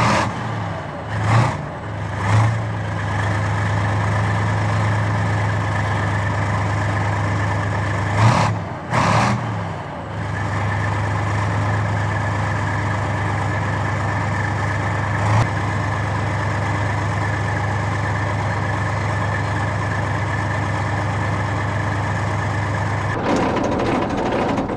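Military tank engine running with a steady deep drone. Several short bursts of noise break in near the start and again around eight to nine seconds in.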